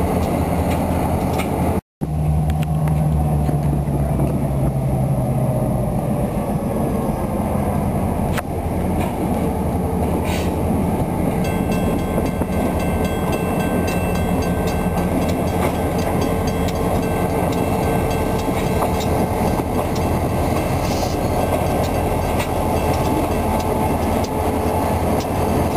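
Diesel-electric locomotives running steadily as a four-unit consist rolls slowly past close by. The audio cuts out briefly about two seconds in. From about halfway, faint wheel clicks and a thin high squeal from the wheels on the rails join in.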